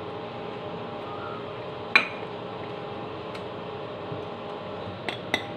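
A metal spoon clinking against a ceramic bowl while scooping food, a few sharp clinks with the loudest about two seconds in, over a low steady hum.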